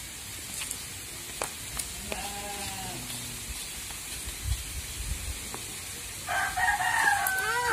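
A rooster crowing: a fainter crow about two seconds in, then a louder, closer crow near the end that holds its note and falls away. A few sharp clicks come between them.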